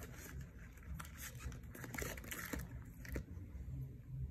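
Faint rustling of paper envelopes and sticker-label sheets being handled and laid down, with a few soft taps.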